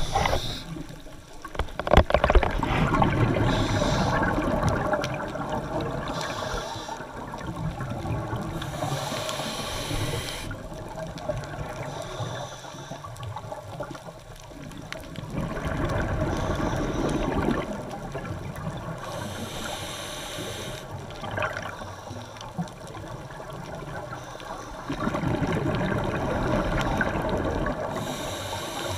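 Muffled underwater sound heard through a camera's waterproof housing: water swishing and gurgling in slow swells, broken by several hissing bursts of bubbles.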